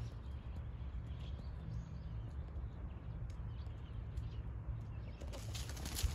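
Outdoor ambience: faint, scattered bird chirps over a steady low rumble. About five seconds in, a louder burst of rustling and handling noise starts as the camera is swung over the ground.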